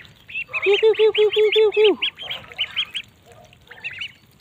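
A flock of month-old white super ducks (a Pekin-type meat breed) calling: a fast run of about a dozen quacks, some eight a second, starting about half a second in, then scattered higher, shorter peeps that thin out toward the end.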